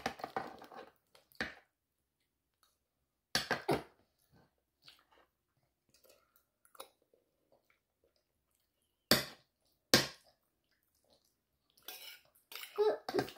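A child eating with a spoon from a plastic divided plate: mouth and chewing sounds and spoon scrapes, in short bursts with pauses between, and two sharp clicks about nine and ten seconds in.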